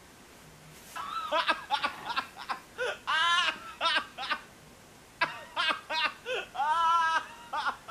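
A person laughing in high-pitched, wavering squeals and short bursts, starting about a second in.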